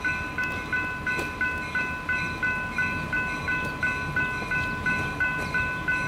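Railroad grade-crossing warning bell ringing steadily, about three strikes a second, as a train approaches the crossing.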